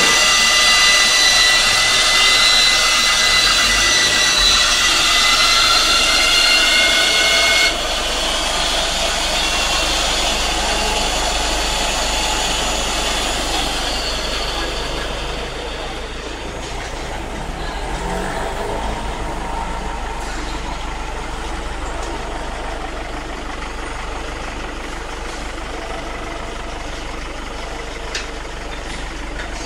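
Electric motor of an HDPE pipe butt fusion welding machine running with a steady high whine, which cuts off abruptly about eight seconds in. After it a lower, duller machine noise carries on and slowly eases off.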